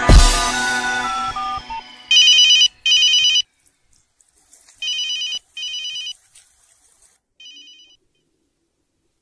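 A telephone ringtone trilling in short double rings: two pairs of rings about two seconds apart, then one fainter ring. Before it, background music ends on a final chord that fades out over the first two seconds.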